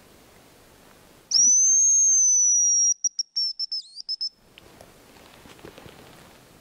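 Hazel grouse decoy whistle blown close by, imitating the male's song: one long, very high whistle that dips slightly, then a run of short notes ending in a quick trill. Faint rustling follows.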